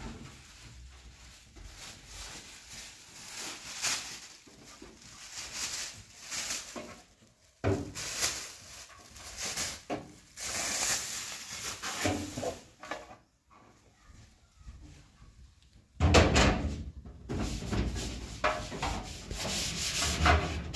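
Hands handling and rubbing plastic: a plastic bag and plastic food containers being moved and sorted, then, loudest over the last few seconds, a plastic fridge tray being scrubbed by hand in a kitchen sink.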